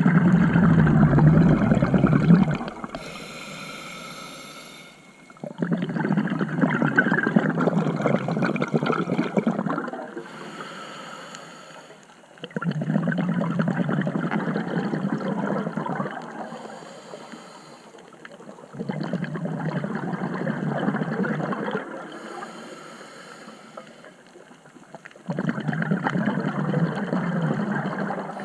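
Scuba diver breathing through a regulator underwater: five long rushes of exhaled bubbles about six seconds apart, with a fainter hiss of inhalation through the regulator between them.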